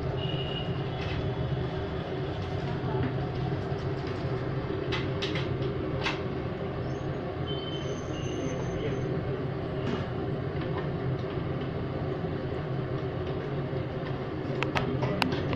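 A steady low mechanical rumble with a constant hum, from kitchen equipment. A few sharp metal clinks from idli plates and steamer pots sound over it, several of them near the end.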